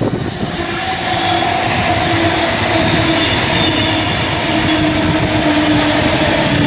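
A Sydney Tangara (T set) double-deck electric train passing close by at speed. It gives a steady rush of wheels on rail with a held, slowly falling whine.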